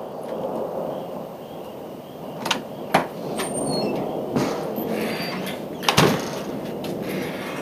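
Thunder rolling after a lightning flash, building up and rumbling on steadily, broken by four sharp cracks or knocks.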